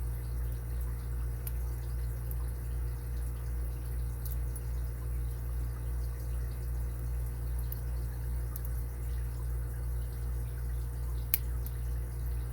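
Faint, scattered ticks of a pick and tension wrench working the pin stack of an Abus 80Ti padlock, with one sharper click about eleven seconds in, over a steady low hum.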